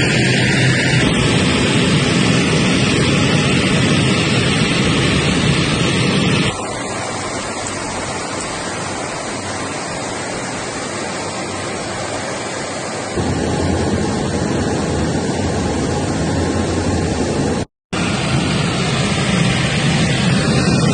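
Be-200 amphibious aircraft's turbofan engines running, heard as a steady rushing noise inside the cockpit. The noise drops abruptly and loses its low end about six seconds in, comes back louder about seven seconds later, and cuts out for a moment near the end.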